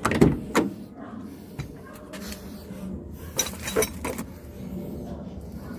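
Hand tools and parts being handled during an oxygen-sensor replacement: a few short, sharp clinks and knocks, two close together at the start and a quick cluster of three near the middle.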